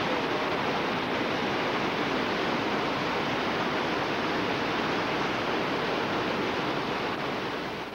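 Steady rushing roar of whitewater on a creek rapid, fading out near the end.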